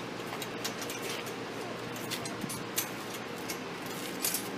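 A few light metallic clicks and rattles from a chain-link gate's latch being worked, over a steady low hum.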